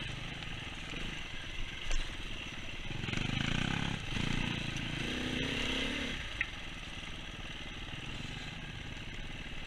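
Off-road dirt bike engine running at low revs on the trail, picking up a little about three seconds in and easing off again.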